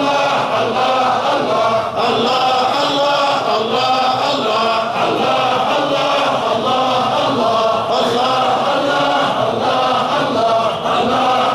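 A large group of men chanting Sufi dhikr in unison, many voices blending into one steady, continuous chant.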